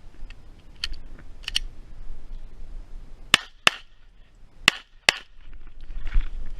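Glock 45 9mm pistol fired in two quick pairs of shots, about a second between the pairs, with a couple of fainter cracks before them.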